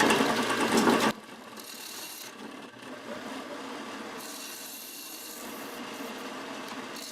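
Turning tool cutting into a spinning wood-and-resin bowl on a lathe, a loud scraping that stops abruptly about a second in, followed by a quieter steady running sound.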